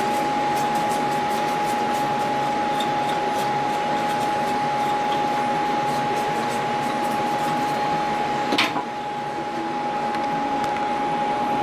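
Steady machine whine and hiss from the milling machine running, with light ticking as aluminium chips are brushed off the part and a single knock about eight and a half seconds in.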